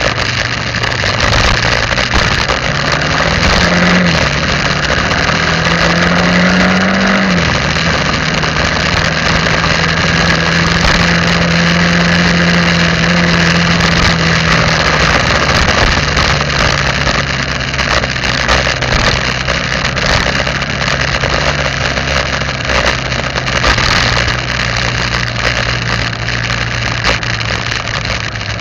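Vehicle engine running under way with road and wind noise: its pitch climbs twice in the first several seconds and drops sharply at a gear change about seven seconds in, then holds steady at cruising speed.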